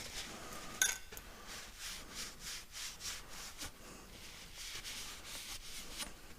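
Repeated rubbing and scraping of parts being handled by hand during O-ring work, with one sharp click about a second in.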